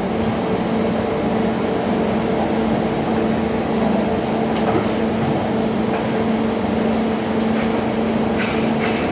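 Injection moulding machine running: a steady mechanical hum at a constant pitch under an even machine noise, with a few faint clicks and a short hiss near the end.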